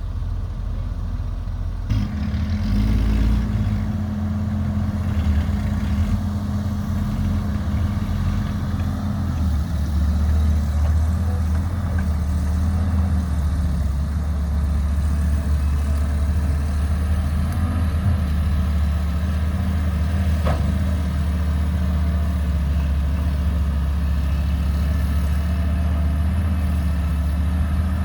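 Diesel engine of a Caterpillar 312B excavator running steadily, with a knock about two seconds in, after which the engine runs louder.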